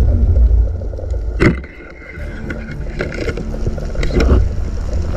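Underwater rumble of water moving past a diver's camera, with scattered clicks and knocks. About a second and a half in comes one sharp, loud snap as a rubber-band speargun fires at a reef fish.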